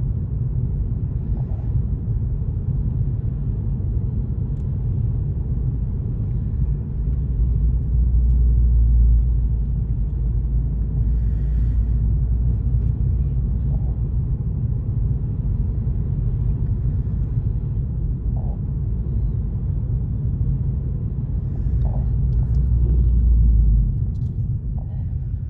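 Wind buffeting the microphone: a steady low rumble that swells louder twice, once early on the second quarter and again near the end.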